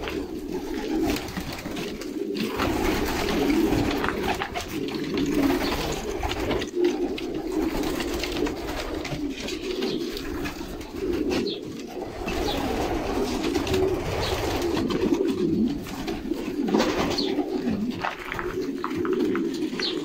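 A flock of domestic pigeons cooing together in their loft: continuous, overlapping low coos from many birds at once.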